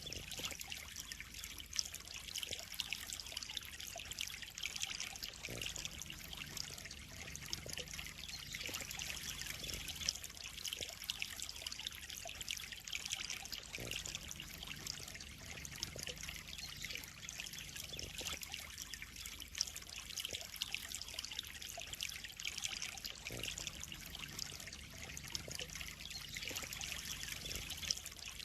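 Pond water trickling and splashing in a steady, unbroken stream, with small scattered drips.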